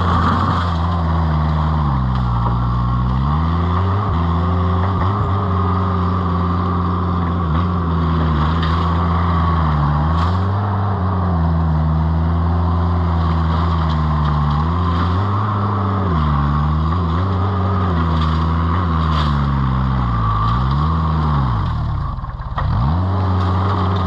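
Vermeer S925TX mini skid steer engine running hard under load. Its pitch sags and recovers every few seconds as it takes load, with one deep drop about 22 seconds in before it picks back up.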